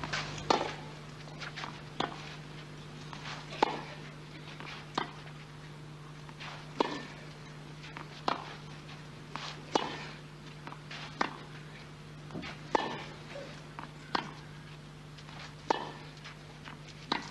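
Tennis ball struck back and forth with racquets in a long baseline rally on clay: a sharp pock about every second and a half, about a dozen in all, with fainter bounces between. A steady low hum runs underneath.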